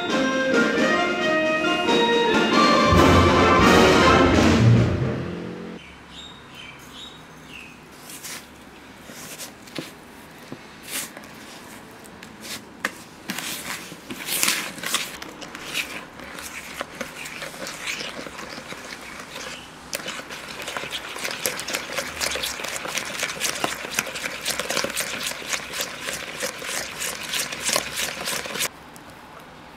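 Upbeat music fades out in the first five or six seconds. Then a wire balloon whisk clicks and scrapes against a mixing bowl as butter and sugar are whisked, in scattered strokes at first and a fast, steady clatter in the second half, stopping suddenly near the end.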